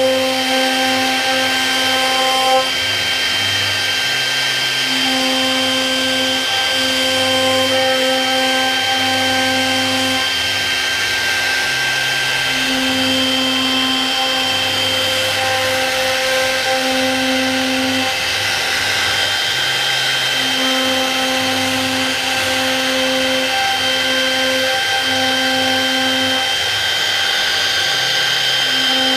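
CNC router carving wood: the spindle runs with a steady high whine, while lower motor tones start, stop and shift pitch every second or two as the cutter moves.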